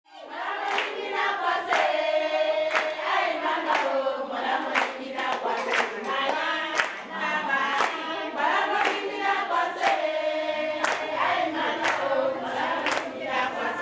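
A group of voices singing a song together, with a clap about once a second keeping the beat.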